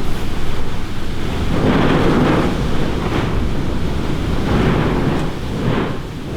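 Blizzard wind buffeting the microphone, a loud low rumble that swells in several gusts.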